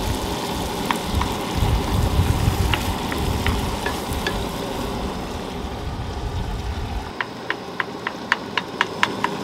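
Beef sizzling in a frying pan on a camp stove as it is stirred with a wooden spoon, with scattered light clicks of the spoon against the pan. Near the end comes a quick run of sharp clicks, about four a second.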